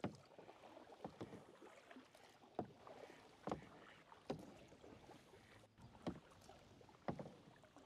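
Kayak paddle blades dipping into the water, a soft splash roughly once a second as a double kayak is paddled along.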